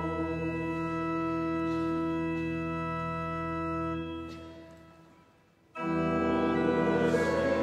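Church organ holding a sustained chord that fades away between about four and five and a half seconds in. Just before six seconds the music starts again abruptly.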